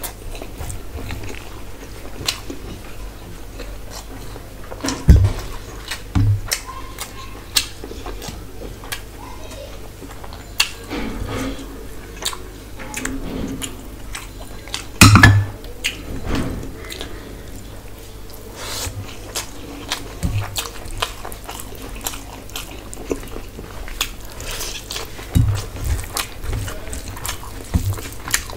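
Close-miked eating by hand: wet chewing and lip smacking of rice and curry, with fingers squishing and mixing the rice. A few louder knocks of dishes on the wooden table come through, the loudest about halfway through.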